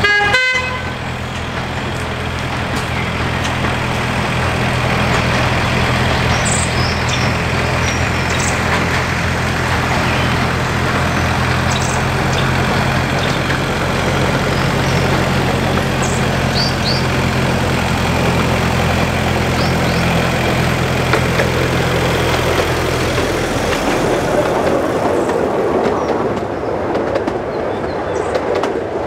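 Small diesel locomotive on a miniature railway approaching with a steady low engine note, after a brief high-pitched note at the very start. Its engine note drops away about 23 seconds in, as the coaches run past with a steady rushing rumble of wheels on the rails. Birds chirp now and then.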